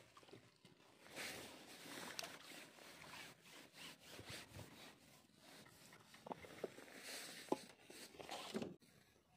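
Faint splashing of a bream caught in a landing net at the water's surface as the net is drawn in and lifted, with a few light clicks and rustles from handling the net and rod.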